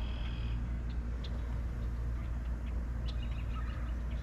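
Outdoor background sound: a steady low rumble with a few faint, short, birdlike chirps, one near the start and a couple near the end.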